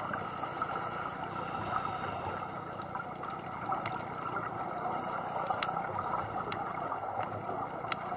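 Steady underwater noise picked up by a dive camera in its housing, with a few scattered sharp clicks.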